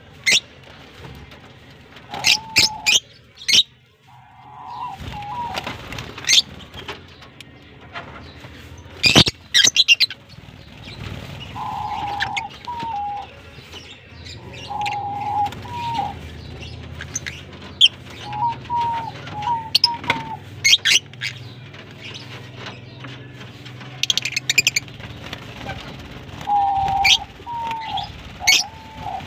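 A colony of lovebirds, Fischer's lovebirds among them, chirping and giving sharp, shrill screeches at irregular intervals. A lower call of short, repeated notes comes back several times through the clip.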